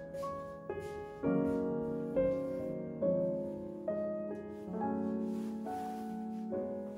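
Background piano music: a slow, gentle melody of struck notes and chords, a new note about every second, each fading away after it sounds.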